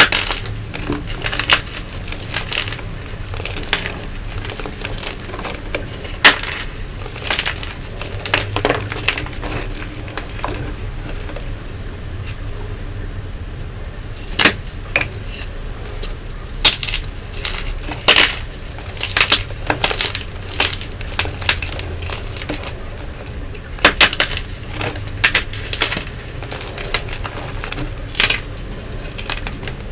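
Blocks of Nexo gym chalk crunching and cracking as they are squeezed and broken apart by hand, a run of sharp, irregular snaps and crumbling crackles.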